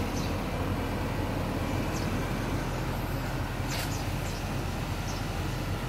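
Steady low hum and rumble of motor vehicle noise, with a few faint clicks.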